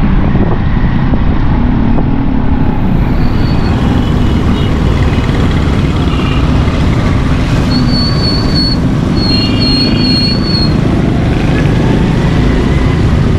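Riding a motorcycle on a wet road: a steady rush of wind over the microphone mixed with the bike's running engine. A few short high whistling tones come through in the middle.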